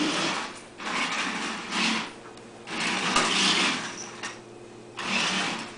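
Toy remote-control car's small electric motor whirring in about five short bursts, with pauses between, as it is driven back and forth.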